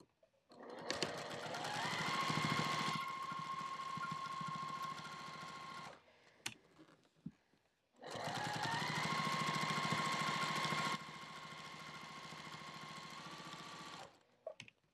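Sewing machine stitching a basting seam in two runs with a pause between them. Each run starts with a rising motor whine, settles into a steady fast stitching rhythm, then gets quieter partway through. A single click sounds in the pause.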